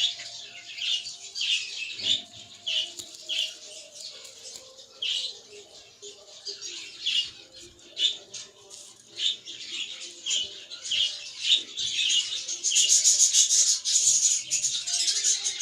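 Budgerigars chirping and chattering in quick short calls, growing denser and louder near the end.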